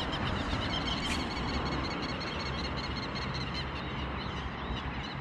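Steady rush of highway traffic with a low hum, and small birds chirping over it.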